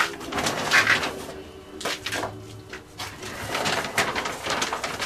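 Loose dry material being scattered by hand into wooden pigeon nest boxes: a run of rustles, scrapes and light knocks at uneven intervals.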